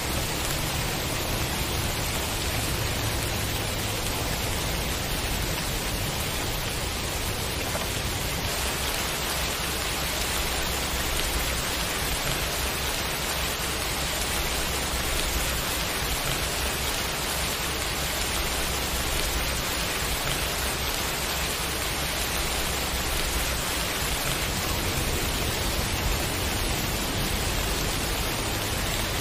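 Steady rain falling, an even hiss with a low rumble beneath it.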